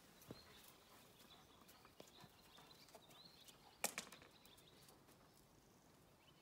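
Near silence: faint outdoor ambience with a few soft, scattered clicks and one sharper click about four seconds in, and faint high bird chirps in the distance.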